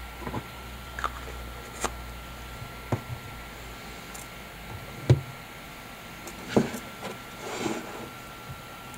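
Camera gear handled on a wooden table: a lens cap and lens being set down and picked up, making a series of short clicks and knocks, the loudest about five seconds in and again about six and a half seconds in, with a brief rustle near the end.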